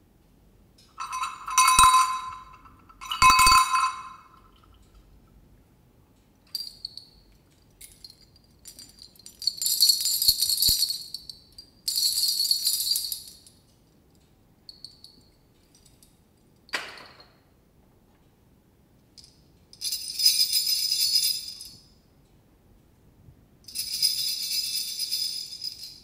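Small metal bells jingling in a string of separate shakes, each one to two seconds long with short pauses between. The first two rings are lower and more clearly pitched than the bright, tinkly jingles that follow.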